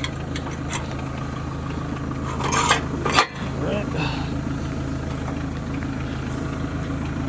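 Kubota L series tractor's diesel engine idling steadily, with a few sharp metal clanks and clinks about two and a half to three seconds in.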